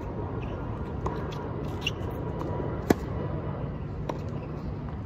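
Tennis rally on a hard court: a series of sharp pops of the ball off racquet strings and the court surface, about a second apart, the loudest just past the middle. A steady low background rumble runs underneath.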